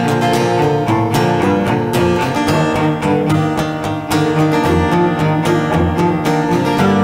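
Instrumental music: acoustic guitar strummed steadily with sustained pitched accompaniment.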